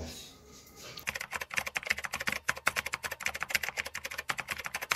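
Typing sound effect: a fast, even run of key clicks starting about a second in, as text types itself onto the screen.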